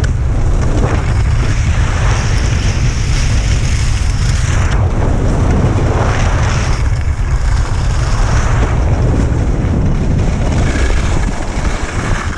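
Wind buffeting the action camera's microphone during a fast downhill run, with the hiss of edges sliding and carving over packed snow that swells and fades with the turns. The noise eases near the end as the rider slows.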